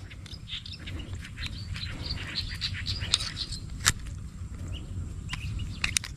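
Small birds chirping over a steady low rumble, with a sharp click about four seconds in and a couple more near the end.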